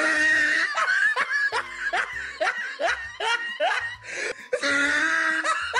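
Human laughter: a run of short laughing bursts, about two to three a second, with longer held laughs near the start and the end.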